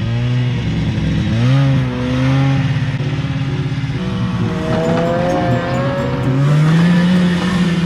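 Snowmobile engine revving, its pitch rising sharply about a second and a half in, holding, then climbing again near the end.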